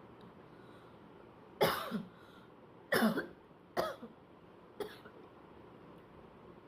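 A person coughing four times in quick succession, the last cough fainter, as in a morning fit of coughing to clear the throat.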